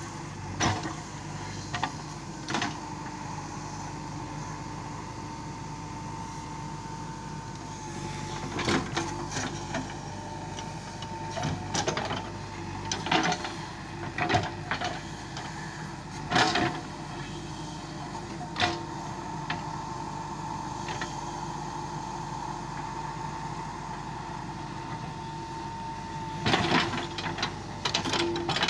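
JCB 3DX backhoe loader's diesel engine running steadily under load as the backhoe digs, with a steady high whine that comes and goes. Scattered sharp knocks and clanks from the bucket and arm, a cluster of them near the end.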